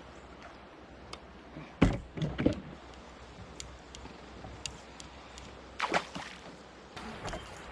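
Hollow thumps and knocks against a fishing kayak's hull as a smallmouth bass is landed and handled: a loud cluster about two seconds in and a sharper pair around six seconds.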